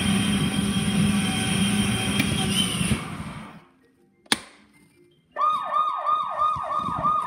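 Kids' ride-on toy police car: its electric drive motor runs steadily, then winds down to a stop about three seconds in. A single click follows, and about five seconds in the car's electronic siren starts, a rapid wail of falling sweeps, about two a second.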